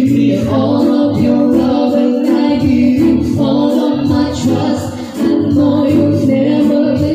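A woman singing a slow love song through a microphone, accompanied by an electronic keyboard playing held chords over a steady bass line and a light, even beat.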